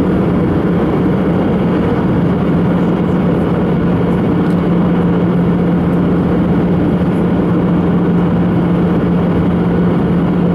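Airbus A319 cabin noise during the descent to landing: a steady drone of the jet engines and rushing air, with a constant low hum.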